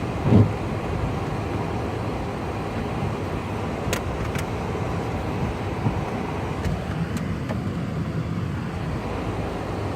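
Steady car noise heard from inside the cabin of a car crawling through traffic, mostly low engine and road noise. About half a second in there is a short, louder low sound that falls in pitch.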